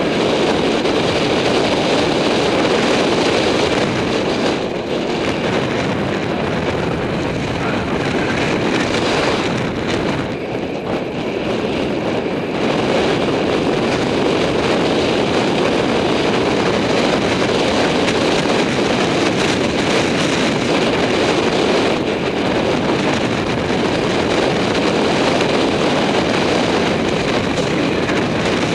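Wind rushing over the microphone of a camera mounted on a road bike descending at speed, a steady loud rush that thins briefly about four and ten seconds in.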